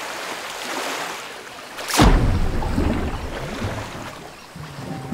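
Water sound effects: a hissing wash of rushing water, then about two seconds in a sharp falling whoosh into a deep splash, followed by low underwater rumbling and bubbling.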